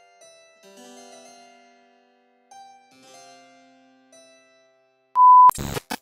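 Solo harpsichord music, a fugue, with notes plucked in a running line. Near the end a short beep is followed by two loud bursts of crackling static, a glitch transition sound effect.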